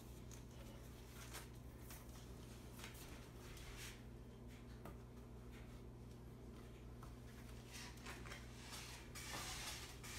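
Faint, scattered rustling and light scraping from gloved hands handling wire around the pins of a wooden wire-stretching jig, over a steady low hum.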